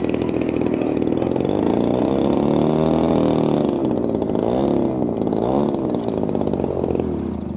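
A small engine running close by, its pitch rising and falling in slow sweeps before it fades near the end.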